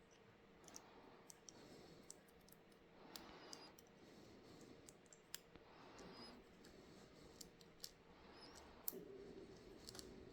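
Faint, irregular small clicks and taps, a dozen or so spread unevenly, of hand tools on a smartphone's parts during disassembly.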